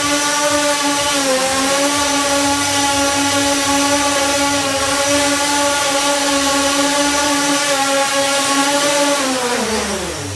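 X8 coaxial multicopter's eight brushless motors and propellers hovering with a steady whine that dips briefly about a second in. Near the end the pitch slides down as the craft throttles back and sets down on the floor.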